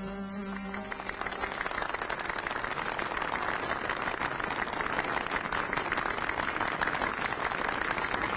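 A song's last held note fades out in the first second, then a crowd applauds steadily, many hands clapping at once.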